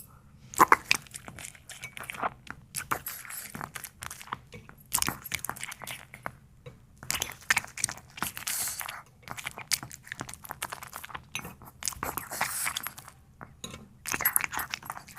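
A dog chewing and crunching dumplings: irregular bouts of crisp crunching and jaw clicks, broken by short pauses.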